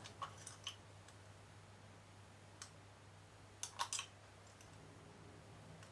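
Small sharp clicks and snips of hand tools working thin wires, a few in the first second, one a little before halfway and a quick cluster of three or four just past the middle. A faint steady low hum runs underneath.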